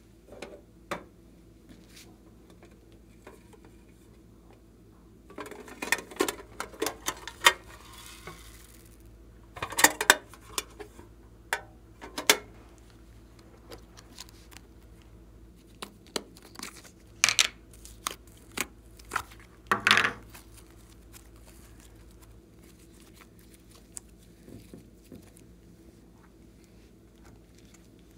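Small plastic containers and foam beads clicking and rattling against a glass baking dish in scattered bursts, with a longer rattle about six seconds in.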